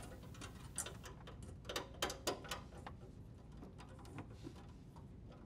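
Faint scattered clicks and light rustling as hands handle a corrugated plastic dishwasher drain hose and a wire, with a few slightly louder ticks in the first half.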